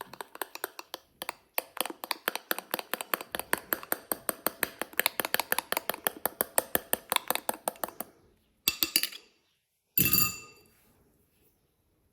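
A kitchen utensil beating fast against a bowl while mixing, about seven clinks a second, stopping about eight seconds in. After a short scrape, a single loud ringing clink, as of the utensil knocked on the bowl's rim.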